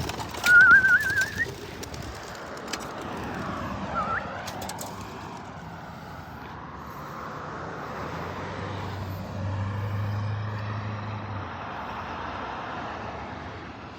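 Flock of racing pigeons just released, wings flapping as they take off and circle overhead. A short wavering whistle sounds about half a second in, and a low steady hum joins for a few seconds past the middle.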